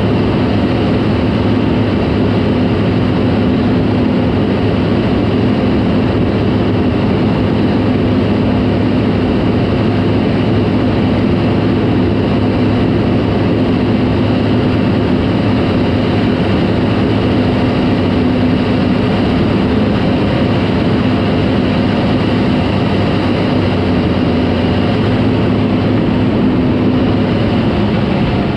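Caterpillar D4 crawler dozer's diesel engine running steadily under work, its note dropping slightly near the end.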